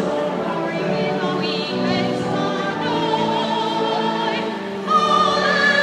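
Choir singing a hymn, with several voices holding notes with vibrato. It grows louder about five seconds in.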